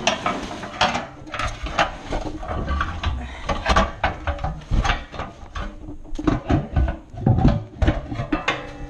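Irregular metallic clunks, knocks and scraping as ATV exhaust and bumper parts are handled and worked loose by hand, with occasional heavier thuds.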